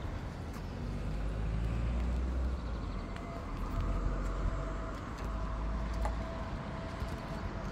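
A road vehicle passing, a low rumble that swells and fades. A faint steady hum comes in about halfway through.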